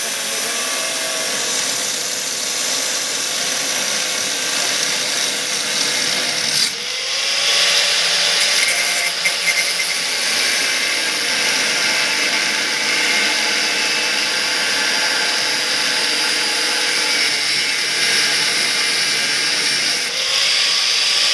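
Electric angle grinder cutting through sheet-metal tractor mudguard, running continuously with a hissing cut; the motor's pitch dips briefly twice as the disc bites into the metal.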